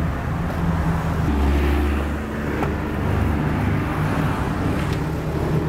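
Street traffic: a steady low engine hum from motor vehicles on the road, swelling briefly about a second in, with a couple of faint light clicks.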